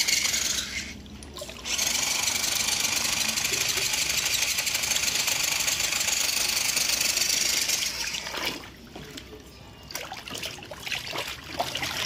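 RC Land Rover D90 crawler's electric motor and drivetrain running with its wheels spinning in water, giving a steady spraying hiss. The throttle is let off briefly about a second in and again about eight seconds in, with scattered splashes as the wheels slow near the end.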